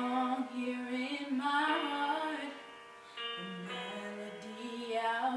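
A girl singing a slow ballad, holding notes with vibrato, with a quick run about two seconds in; the line breaks off briefly near three seconds and a new, lower phrase begins.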